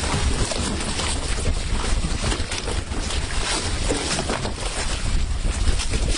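Wind buffeting the microphone: a steady, fairly loud rush with a heavy low rumble.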